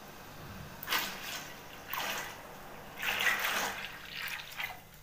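Maida milk, a thin flour-and-water slurry, being poured from a vessel into hot sugar syrup in a steel pot: liquid splashing and gurgling in several surges, the longest and loudest starting about three seconds in.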